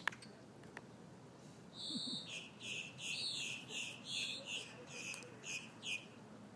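A brown pelican preening close by, its bill rasping through its feathers in a run of about nine short scratchy strokes from about two seconds in. A single sharp click comes right at the start.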